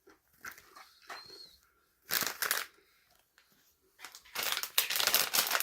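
Close crunching and crinkling from snack eating: a few faint clicks, a short crackle about two seconds in, then dense, continuous crackling from about four seconds in.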